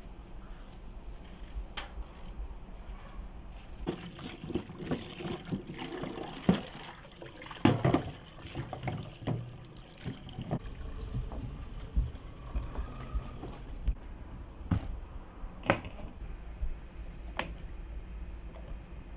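Tap water running and splashing into a plastic bowl in a steel sink as potatoes are rubbed clean by hand, with many knocks and clatters. Later, a few separate sharp knocks as the potatoes are put into an enamel pot.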